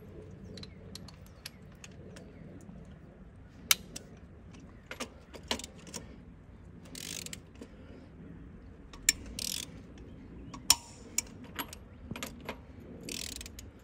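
Torque wrench with a socket on an extension being worked around a bus axle hub's flange nuts: sharp metal clicks and a few short bursts of ratcheting. Several of the nuts are not holding torque, from stripped studs or nut threads.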